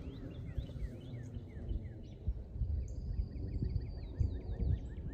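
Songbirds singing outdoors: rapid series of short, down-slurred chirps, with a fast high trill in the middle. Underneath is a low, uneven rumble with soft thuds.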